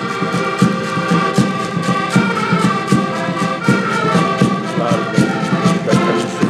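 Several accordions playing a lively tune together: sustained reed chords over a steady pulsing beat.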